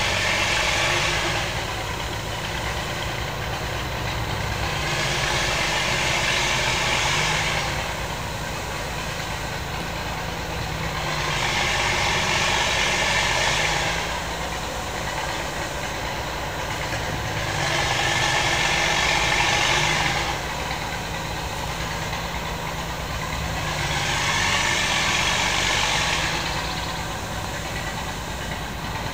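An engine idling steadily, with a hiss that swells and fades about every six seconds.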